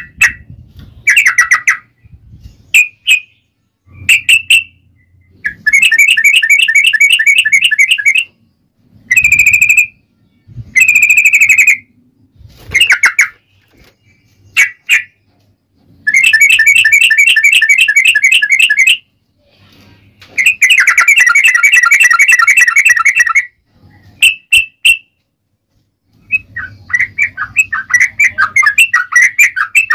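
Yellow-vented bulbul (trucukan) singing in loud bursts: short phrases broken by several long, rapid trills of about three seconds each, the 'ropel panjang' style, with a fast chattering run near the end.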